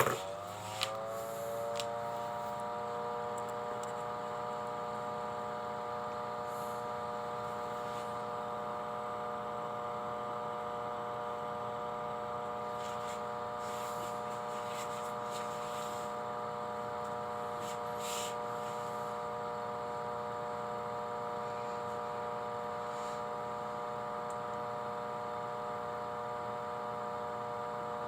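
A small electric motor spinning up and then running at a steady speed with a constant whine, with a few light clicks about a second in and near the middle.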